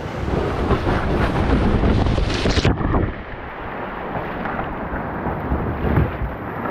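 Whitewater river rushing, with wind rumbling on the microphone. The high hiss drops away abruptly about two and a half seconds in.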